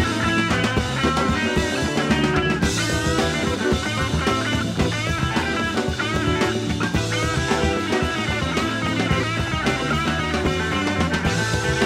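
Background rock music with electric guitar and drums.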